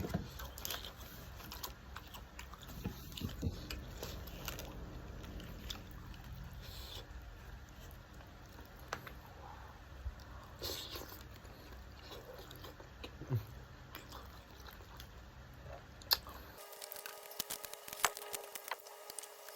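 Someone chewing and eating close to the microphone, with scattered light clicks and taps. Near the end the low background rumble stops abruptly and only sharper ticks remain.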